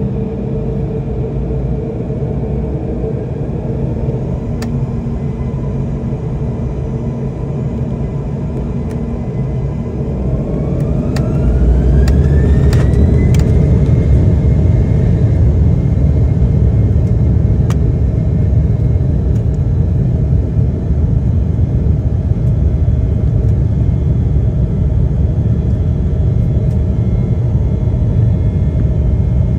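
Embraer 195's turbofan engines heard from inside the cabin: a steady low rumble at first. About ten seconds in, a rising whine comes in as the engines spool up to take-off thrust, and the sound settles into a louder, steady rumble.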